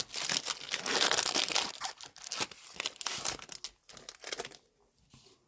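Foil wrapper of a Pokémon trading card booster pack crinkling and being torn open by hand. The crackle is loudest for the first couple of seconds, then thins to scattered crinkles and stops about four and a half seconds in.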